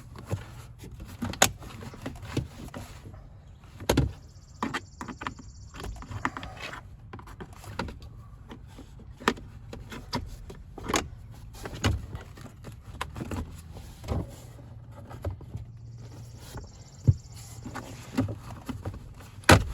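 Plastic sill plate being pried off a pickup's door sill with a trim removal tool: irregular clicks, knocks and snaps of the plastic trim and its clips, the sharpest one near the end, over a steady low hum.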